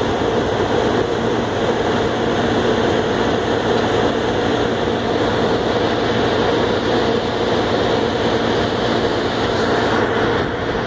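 Heavy diesel earthmoving equipment running, a steady, unchanging loud rumble.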